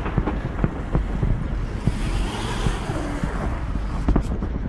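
Wind buffeting a phone's microphone as a low, steady rumble, with a few short knocks from the phone being handled and swung around.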